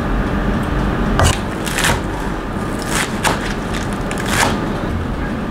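Cleaver chopping lettuce on a wooden cutting board: about five crisp knocks, irregularly spaced, over a steady low background rumble.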